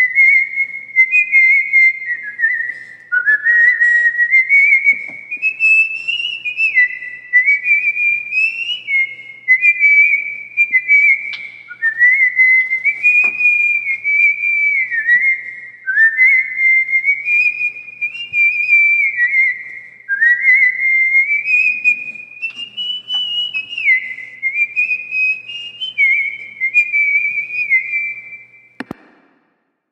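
A person whistling a tune, one note at a time, with slides up and down between notes; it stops near the end, followed by a single click.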